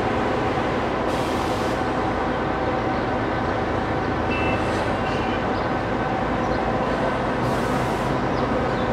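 Steady din of city street traffic, with engines running, and two short hisses about a second in and near the end.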